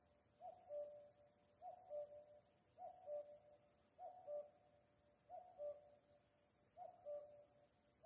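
Common cuckoo calling its two-note "cu-ckoo", a higher note followed by a lower one, six times at a steady pace of a little over a second apart, faint.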